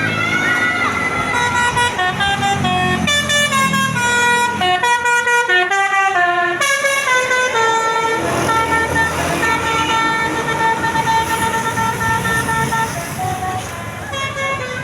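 Basuri telolet multi-tone bus horn playing a tune: quick runs of short stepped notes, then longer held notes in the second half.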